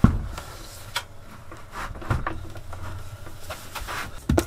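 Thumps and knocks of gear being shifted and stowed in a camper's storage space: a sharp knock at the start, then lighter knocks and rustling, with another pair of knocks near the end.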